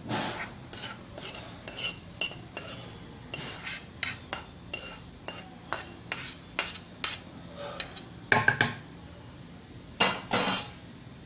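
Spoon clinking and scraping against a kadai while scooping cooked carrot pieces and green chillies into a mixer jar: a string of short metallic clinks, about two a second, with louder clatters near the end.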